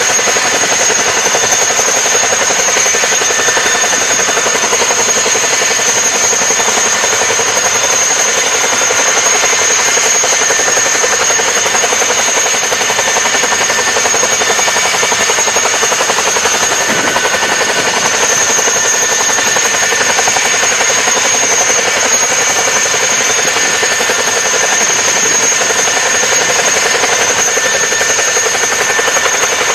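Boeing CH-47 Chinook tandem-rotor helicopter running on the ground with both rotors turning: a steady, loud rush of rotor and engine noise under a constant high turbine whine.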